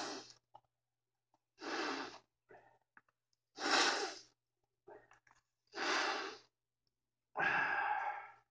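A person breathing hard through the nose while sniffing ground pepper: five long, noisy breaths about two seconds apart. The last has a touch of voice in it, like a sigh.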